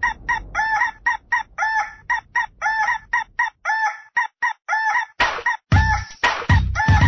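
Rooster crowing and clucking, cut into a fast, stuttering repeat of short calls, about three a second. About five seconds in, a heavy bass beat joins the calls.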